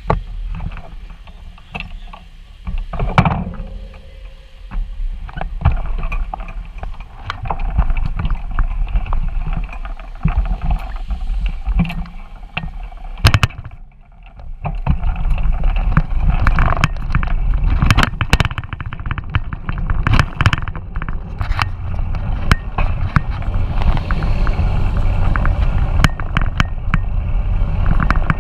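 Wind buffeting an action camera's microphone on a moving bicycle, with frequent knocks and rattles from bumps in the road. The rumble grows steadier and louder about halfway through, after a brief lull.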